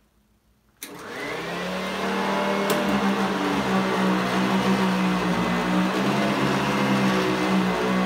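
Eureka ESP upright vacuum cleaner switched on with a click about a second in; the motor spins up over a second or so and settles into a steady loud run with a high whine.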